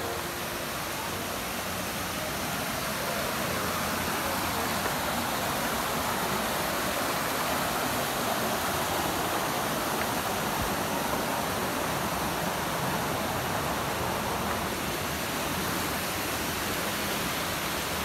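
Waterfall water rushing in a steady hiss, which grows a little louder over the first few seconds and then holds.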